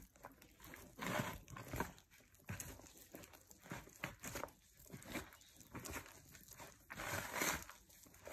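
Hand mixing crumbly roti dough of flour, chopped onion and green chilli with water, with faint, irregular squishing and rustling strokes about one or two a second, a longer one near the end.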